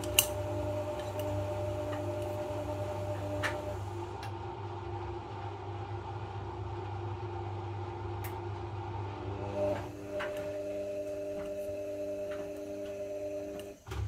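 Front-loading washing machine drum tumbling a puffer jacket: a steady motor hum with a whine over it and a few sharp clicks. The motor dips briefly about ten seconds in, then runs on, and cuts out for a moment near the end.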